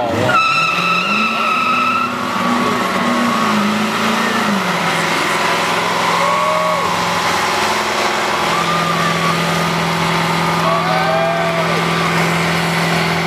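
Pickup truck doing a burnout: the engine revs up in the first second and is held high, then settles to a steady lower pitch about halfway through, while the spinning rear tyres squeal and hiss against the pavement.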